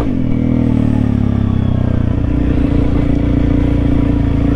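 Honda CRF300L's single-cylinder four-stroke engine running under way. Its revs fall over the first second or so, then it holds a steady pitch.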